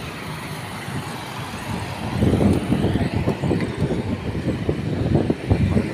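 Road traffic going by, mixed with uneven rumble and knocks from a handheld phone microphone carried at a jog; the rumble gets louder about two seconds in.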